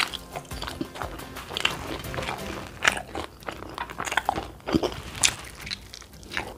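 Crunchy bites and chewing of fried chicken, a run of short crisp crackles and wet mouth sounds at an irregular pace.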